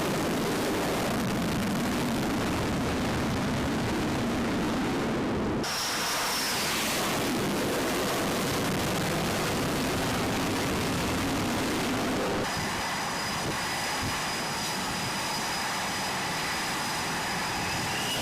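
Jet aircraft engines running, a loud steady rushing noise that changes abruptly about six and twelve seconds in; after the second change a steady high whine sits over it.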